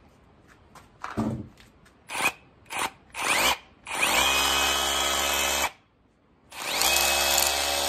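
KIMO cordless hammer drill running with no load, a flat chisel bit spinning in the air. A few quick trigger blips come first, then two runs of about a second and a half each; each spins up with a rising whine and cuts off sharply.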